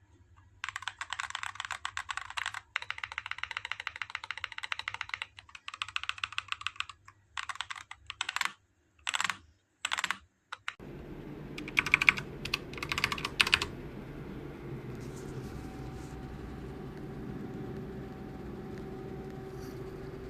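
Fast typing on a mechanical keyboard fitted with PBT dye-sublimation keycaps, in quick runs of key clicks with short pauses. About halfway through a steady hum comes in, with a few more short bursts of typing over it.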